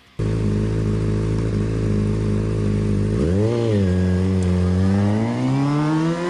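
Motorcycle engine idling steadily, then a quick blip of the throttle about three seconds in, then revving up with a slowly rising pitch near the end.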